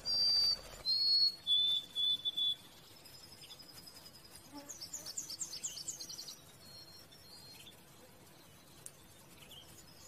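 Small songbirds singing: a few clear, high whistled notes, each a little lower than the one before, over the first two and a half seconds, then a fast trill of short high notes about five to six seconds in.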